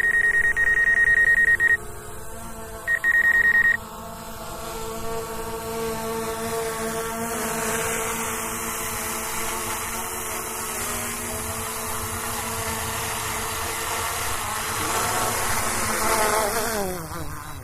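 A steady high beep for about two seconds, repeated briefly a second later, then the DJI Mavic Air 2 drone's propellers humming steadily close by. Near the end the motors spin down, their pitch falling as they stop.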